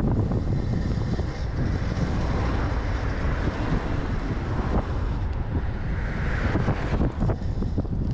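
Heavy wind buffeting on a GoPro action camera's microphone during a fast road-bike descent, a steady rushing noise with no pauses.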